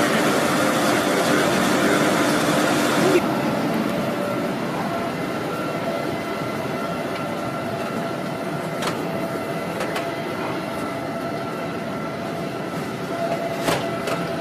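Steady machinery and ventilation noise inside an Ohio-class submarine's compartments, a constant hum with a few faint tones and occasional light clicks; its character changes abruptly about three seconds in.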